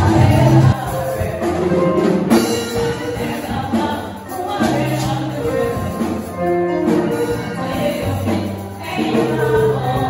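Bass-heavy dance music that cuts off under a second in, followed by a group of women singing a gospel song into microphones.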